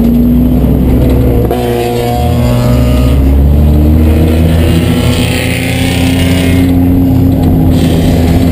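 Race car engine running steadily at a fairly constant pitch, heard from inside the stripped cabin. Its note changes about a second and a half in, and a rushing hiss swells in the middle and fades.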